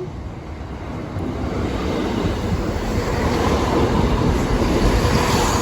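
A train approaching and running over the level crossing, its rumble growing steadily louder.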